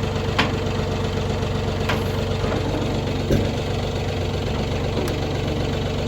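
An engine idling steadily, with a few sharp clicks and one louder knock a little over three seconds in.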